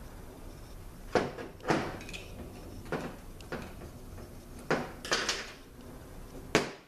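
Aluminium 5L40E transmission valve body parts knocked and set down on a steel workbench while being handled: a string of sharp clacks and clunks, about seven, with short pauses between.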